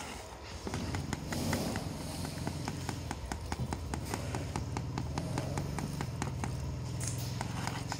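Hand sledge striking a steel chisel, chipping into the masonry at the base of a wall in a fast, even series of sharp metallic blows, several a second.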